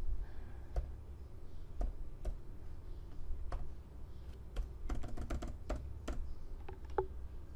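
Keys on a computer keyboard pressed one at a time, with a quick run of several keystrokes about five seconds in, over a low steady hum.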